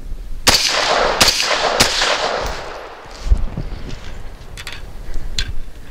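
AR-style semi-automatic rifle fired three times in quick succession about half a second in, each shot trailing off in a rolling echo. A few fainter, sharp knocks follow later.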